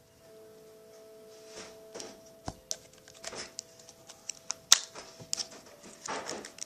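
Irregular sharp clicks and crackles, the loudest a single snap a little past the middle, over a faint steady hum.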